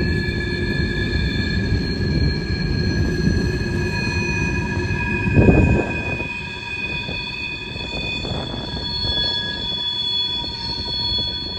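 Freight train's covered hopper cars rolling past on a curve, with a low steady rumble and high, steady squealing from the wheels on the curve. The rumble swells about five and a half seconds in as the last car passes close, then drops back as the train moves away, while the squeal carries on.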